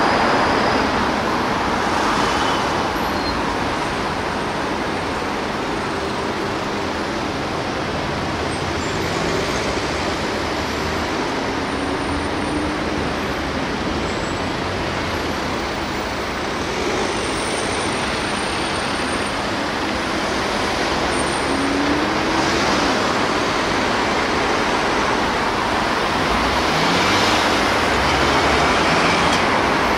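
Steady road traffic noise from dense, slow-moving cars in a multi-lane city street, with a few vehicles briefly revving up.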